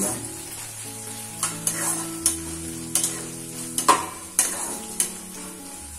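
Peas, beans, carrot and broken cashews frying in oil in a pan and being stirred: a light sizzle with irregular scrapes and knocks of a utensil against the pan, every half second to a second.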